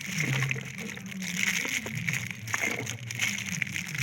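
Battery electrolyte being poured from a bottle into a car battery's cells, the liquid sloshing and trickling, over a low wavering background hum.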